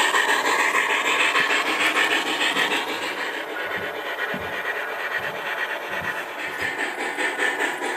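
HO scale MTH model train running along the layout track: a steady hiss with fast, even ticking. It is loudest at the start as the cars pass close, eases off, then builds again near the end.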